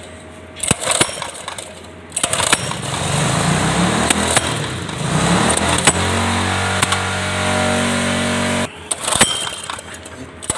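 Briggs & Stratton single-cylinder gasoline engine on a concrete power trowel being pull-started: a short pull about a second in, then it catches about two seconds in. It runs unevenly for a few seconds, settles into a steady run, and cuts off suddenly near the end.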